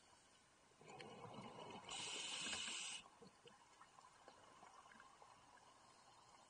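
Scuba diver breathing through a regulator underwater: an inhale about a second in, then a loud hiss of exhaled bubbles for about a second, followed by faint crackling of rising bubbles.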